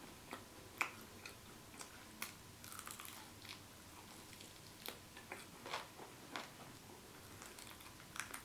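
Faint close-up chewing and mouth sounds of a person eating ghost pepper noodles wrapped in kimchi, with scattered short clicks and soft crackles.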